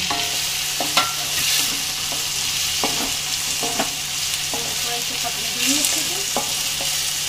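Onions, tomatoes and green capsicum sizzling in hot oil in a stainless-steel kadhai while being stirred with a wooden spatula, with a few sharp clicks and knocks of utensils against the steel pan.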